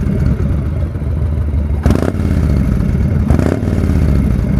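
Yamaha XV1600 Wild Star's air-cooled V-twin idling steadily, with two brief knocks about two seconds in and again a second and a half later.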